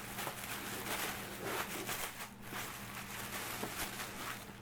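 Soft, irregular rustling and handling noises of items being moved and picked up, over a steady low electrical hum.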